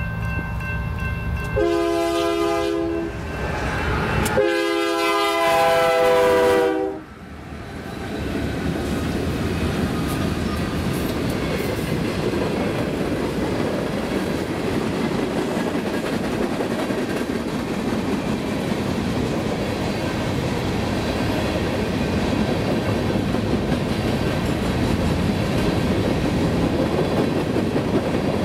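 Freight train's air horn sounding two blasts for a grade crossing: a short one about two seconds in, then a longer, louder one that cuts off about seven seconds in. Then covered hopper cars roll steadily past with a continuous clickety-clack of wheels on the rail joints.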